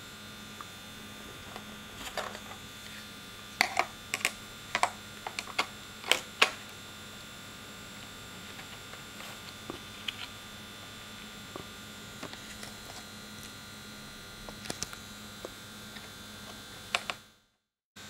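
A Toshiba SSD being handled and set into a laptop's hard-drive bay: scattered light clicks and taps of plastic and metal, most of them in the first several seconds, over a steady hum.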